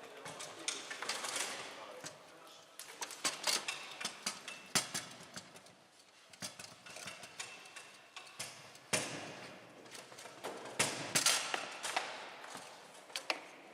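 Table-football play on a Bonzini table: the ball struck by the rod figures and knocking against the table walls, a series of sharp, irregular clacks in quick clusters, with a murmur of voices behind.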